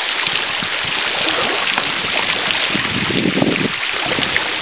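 Water showering down from a sea-cave overhang onto the sea surface: a steady hiss of many drops striking the water. A brief, lower sound comes about three seconds in.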